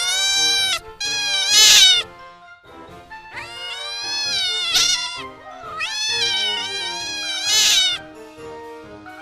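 Domestic cat meowing repeatedly: a series of long, drawn-out meows that rise and fall in pitch, with short gaps between them.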